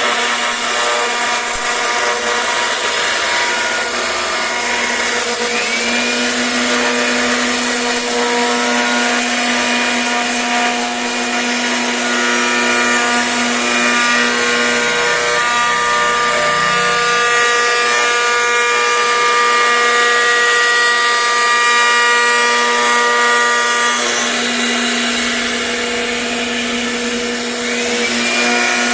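CNC router spindle running with a steady high whine as it carves a 3D bed panel, the set of tones shifting every several seconds as the cut changes.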